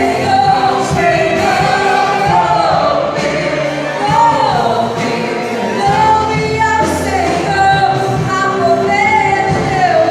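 Church orchestra playing a gospel hymn, with voices singing a flowing melody over sustained instrumental accompaniment.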